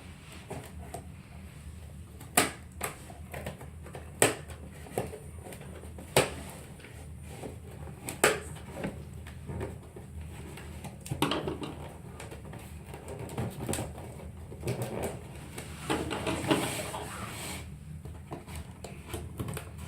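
Scissors cutting into a cardboard box: sharp snips about every two seconds in the first half, then longer scraping and rustling cuts later on.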